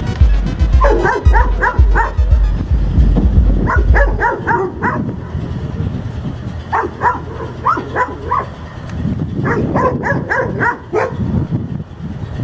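Dogs barking in four bursts of several quick barks each, with short pauses between the bursts.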